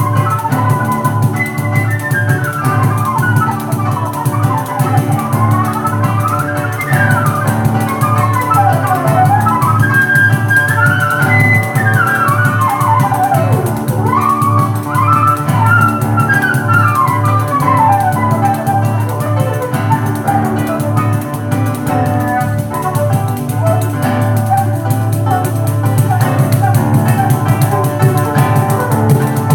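Live transverse flute playing quick melodic runs that climb and fall, over a steady low accompaniment and a pandeiro-style frame drum keeping the beat.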